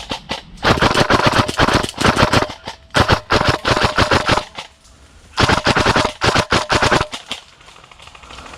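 Airsoft gun firing on full auto in three long bursts of rapid clicking shots, after a few single shots at the start.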